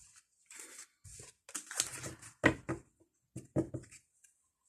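A deck of fortune-telling cards being shuffled and handled: a quick run of short, uneven rustles and card snaps, the loudest a little past the middle.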